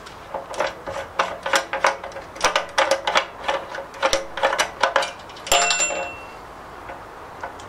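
Light metal clinks and rattles as the filler cap is unscrewed by hand from the petrol tank of a 1937 Lister D engine, then one louder metallic clank, about five and a half seconds in, that rings briefly.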